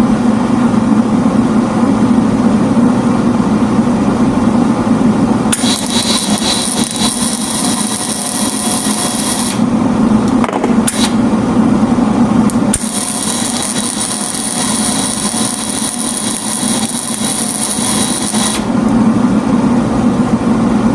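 Welding arc crackling in two runs, about four and about six seconds long, with a couple of brief strikes between them, over a steady low hum.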